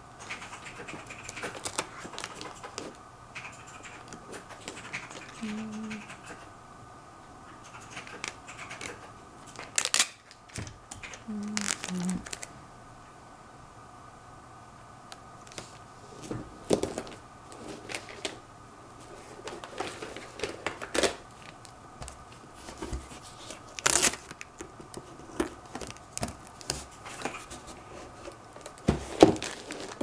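Clear packing tape pulled off a handheld dispenser, crinkling and rubbing as it is laid and smoothed by hand over a painted box, with scattered clicks and several sharp rips of tape.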